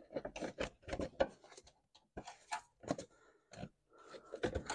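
Irregular plastic clicks, knocks and scraping as a plastic battery tray and its rubber drain pipe are handled and wiggled into place in a car's engine bay.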